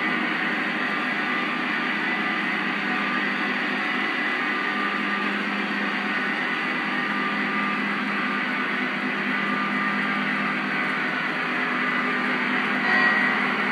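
Lionel Legacy O-gauge ES44AC diesel locomotives pulling a long freight at track speed: a steady whir and rumble of motors and wheels on three-rail track, mixed with the locomotives' sound-system diesel engine drone. The sound swells briefly near the end.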